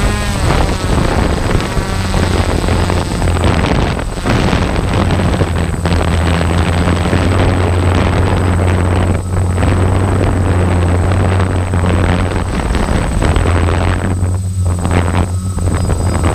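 A steady low engine-like drone under loud rushing noise, continuous throughout. Near the end the rushing noise briefly drops away twice while the low hum carries on.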